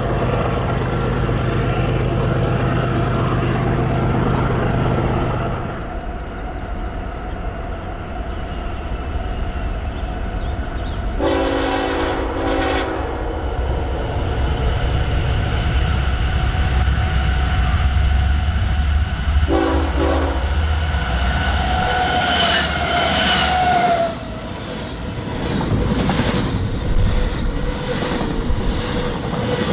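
BNSF diesel freight train running past, its locomotive engines humming. The air horn sounds twice: a longer blast about eleven seconds in and a short one near twenty seconds. Near the end, rail cars roll by with rhythmic wheel clatter.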